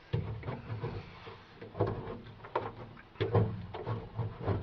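Self-adhesive sound-deadening insulation being pressed and rubbed by hand onto the sheet-metal roof inside a Mack truck cab: a run of irregular knocks and rubbing thumps against the panel.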